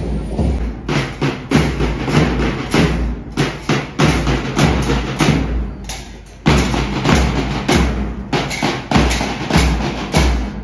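School marching band's snare and bass drums beating a steady march rhythm, about two beats a second. The sound breaks off abruptly about six and a half seconds in and the beat comes back louder.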